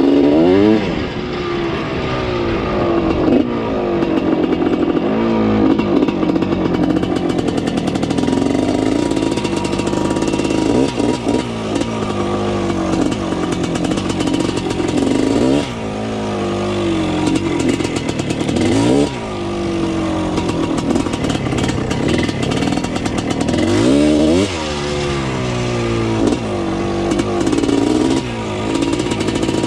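1979 Yamaha IT 250's two-stroke single-cylinder engine being ridden off-road, revving up and falling back over and over as the throttle opens and closes and gears change.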